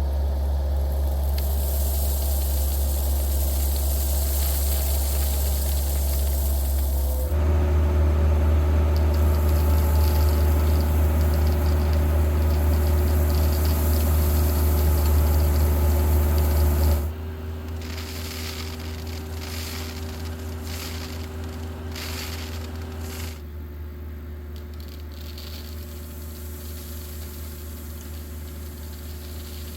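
Heavy excavation equipment's diesel engine running steadily, with a deep, even rumble. The sound jumps louder about 7 seconds in, then drops quieter about 17 seconds in and again near 23 seconds, with some scattered knocks in between.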